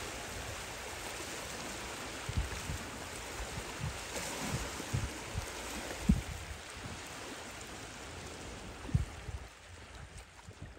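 Small waves washing around a rock and lapping over the stones of a shallow rocky shore, a steady rush of water, with a few brief low thumps scattered through it.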